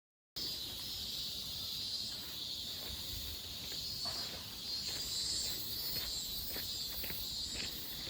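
Steady high-pitched chorus of insects outdoors, cutting in abruptly just after the start, with a walker's footsteps about twice a second from around the middle.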